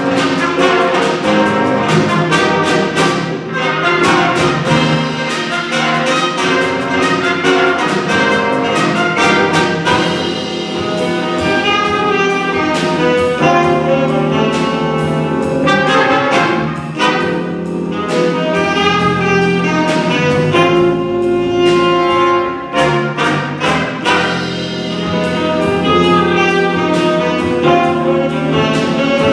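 Jazz big band playing, with trumpets and trombones prominent over a drum kit keeping a steady beat.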